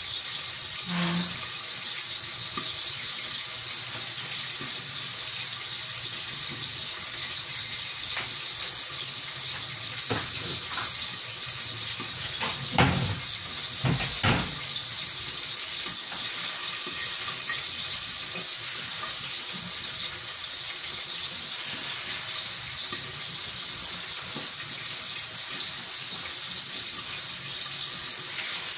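Vegetables sizzling steadily in a stainless steel pan over a gas burner, an even hiss with no pauses. Two short knocks sound near the middle.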